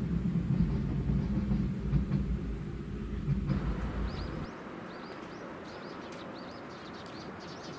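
DE10 diesel locomotive hauling a 12-series passenger coach past, its engine and wheels making a heavy low rumble that cuts off abruptly about four and a half seconds in. After that there is quieter outdoor air with birds chirping.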